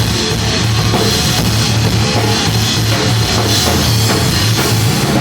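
Rock band playing at a sound check: a drum kit with steady cymbals and bass drum over a full, loud band sound with a strong bass line.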